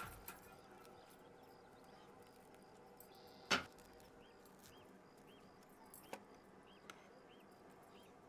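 A steel pot set down on a kerosene pressure stove's metal grate with one sharp clank about three and a half seconds in, among a few lighter knocks. Faint short high chirps repeat in the background.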